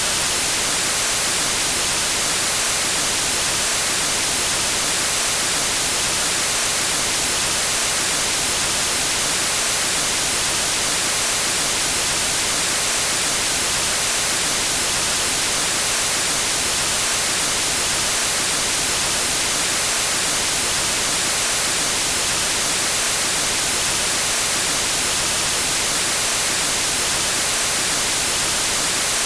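Steady white-noise hiss, the static of an untuned television, even and unchanging and heaviest in the treble.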